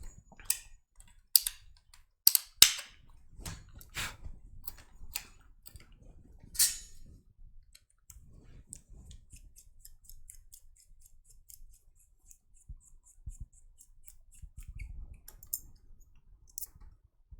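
Sharp clicks and knocks of small tools being handled on a workbench, several loud ones in the first seven seconds, followed by a long run of light, even ticks at about four a second.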